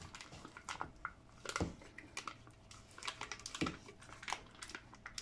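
Foil wrapper of a cream cheese block crinkling and rustling as the cheese is squeezed out of it into a plastic blender jar, with two soft knocks against the jar.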